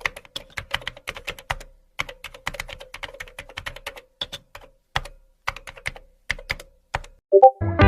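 Fast, irregular typing on a computer keyboard: bunches of key clicks with short pauses between them. Loud music cuts in near the end.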